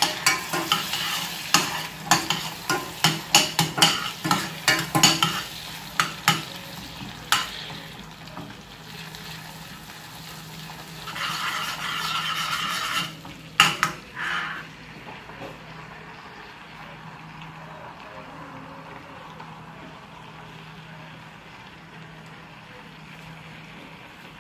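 A metal fork scrapes and clicks against a stainless steel saucepan as butter is stirred into sizzling caramel with cashews. The quick stirring stops about eight seconds in. A short louder spell of stirring follows, ending with a sharp clink, and then only a low steady sizzle is left.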